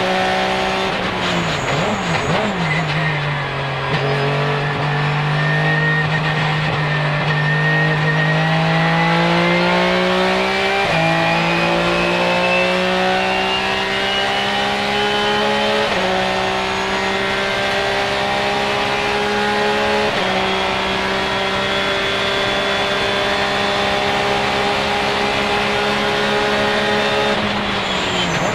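Porsche 996 GT3 RSR race car's flat-six engine heard from inside the cockpit under full throttle. It comes down through a couple of blipped downshifts early on, then pulls hard with rising revs, with sharp upshifts about 11, 16 and 20 seconds in, holds high revs for a while, and is blipped down through the gears again near the end under braking.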